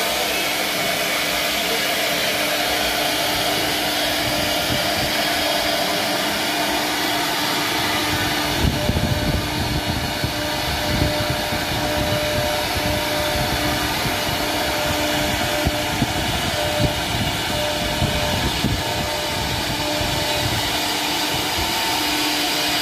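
Silver Ring Champion SR-1325 CNC router's spindle running with a steady whine while its bit carves a 3D pattern into hardwood, a constant cutting hiss under it. From about eight seconds in, irregular low rumbling and light knocks are heard over it.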